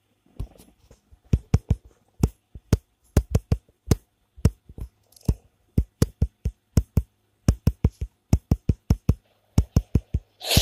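A long series of sharp knocks or taps in an uneven, drum-like rhythm, often several a second in quick clusters.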